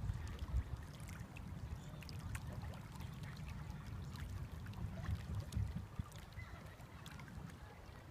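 Outdoor lakeside ambience: wind rumbling on the microphone, with faint water lapping and small scattered clicks.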